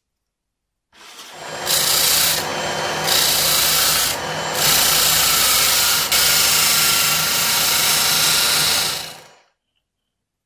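Electric power tool working wood: a steady motor hum under a continuous rasping, easing off twice briefly and stopping about nine seconds in.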